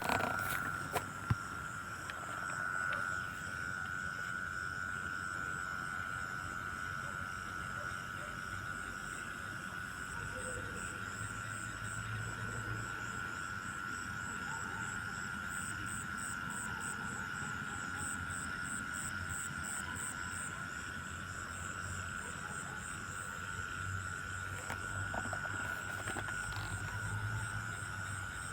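Night-time chorus of insects or frogs: a steady high trill held throughout, joined by a faster, higher pulsing chirp from about 16 to 21 seconds in. A few sharp knocks in the first second or so.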